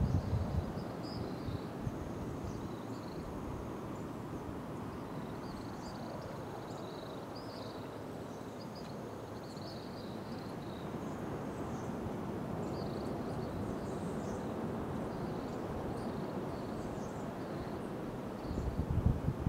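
Outdoor ambience: a steady rushing background with many short, high chirps from small creatures scattered throughout, and low wind buffets on the microphone at the start and again near the end.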